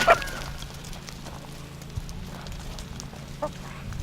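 Farmyard background with free-range chickens: a sharp click at the start, a steady low hum, and one short call from a bird about three seconds in.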